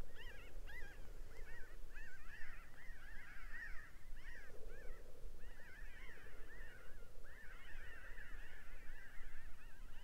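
A flock of jays calling as it flies over: many short, rising-and-falling calls overlapping one another without a break. The camper took them for scrub jays.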